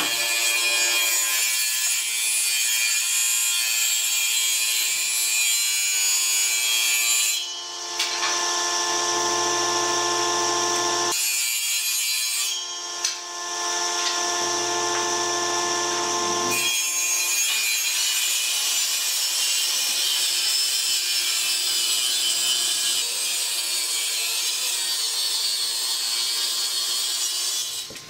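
Handheld power saw cutting along the edge of a wooden tabletop, guided by a clamped straightedge: a steady motor whine under the hiss of the cut. The cut eases twice in the middle for a few seconds each, with the motor still running.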